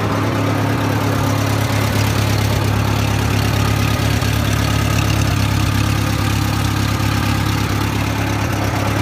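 1970s Bobcat 610 skid steer's rebuilt gasoline engine idling steadily, warming up after a cold start.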